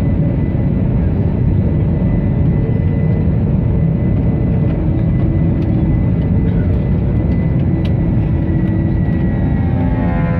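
Airbus A321 jet engines running, a loud, steady rumble heard from inside the cabin with a thin high whine over it. Near the end a droning hum of several pitches begins to come in over the rumble: the unusual engine noise the passenger set out to record.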